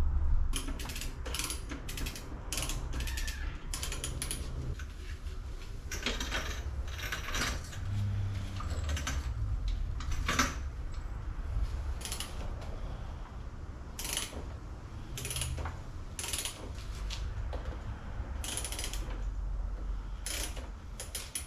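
Ratchet mechanism clicking in repeated short bursts, a stroke or a few at a time, with light metal handling noises in between.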